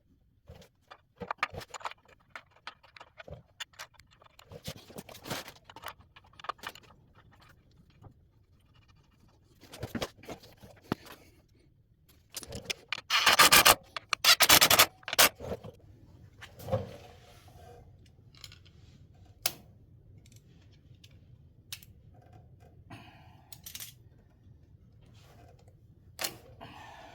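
Hand tools and metal parts clinking, clattering and scraping in scattered bursts during work on a motorcycle's primary drive, with a louder rough scraping clatter about halfway through.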